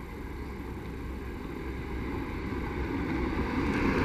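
A car approaching along the road, its engine and tyre noise growing steadily louder.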